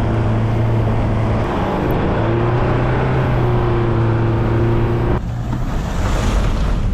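4WD vehicle engine running steadily under load while driving, its drone shifting slightly in pitch a couple of times. About five seconds in the engine tone drops away, leaving a rushing noise of tyres and wind.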